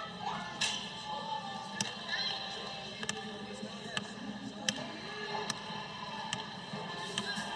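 Background music over a basketball being dribbled on a hardwood gym floor, with sharp ball bounces heard at irregular intervals, about once a second.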